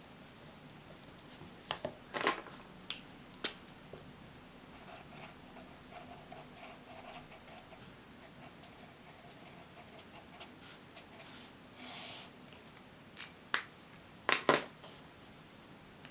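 Pens handled at a wooden desk: a few sharp clicks and taps about two seconds in, and a louder cluster near the end, as pens are picked up and set down. Faint writing on paper lies between them.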